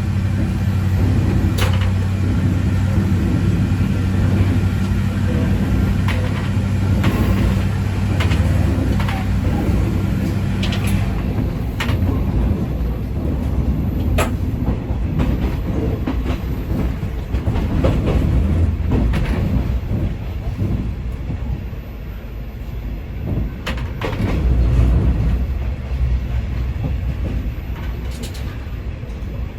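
Diesel railcar of the former JNR KiHa 20 series running along the line, heard from inside the car. A steady low engine note carries through the first ten seconds or so, then gives way to the rumble of the wheels, with occasional sharp clicks as they cross rail joints.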